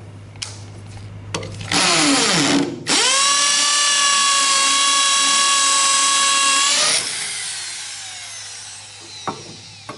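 Hammer drill on percussion setting, fitted with an ARTU cobalt and tungsten carbide multi-purpose bit, drilling into stone. About two seconds in comes a short burst of rough grinding noise, then a loud steady high motor whine for about four seconds. The whine cuts off and winds down, and a single click follows near the end.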